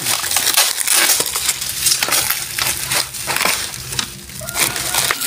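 Bubble wrap and plastic packaging crackling and rustling as they are handled and pulled off, in a dense run of rapid small crackles.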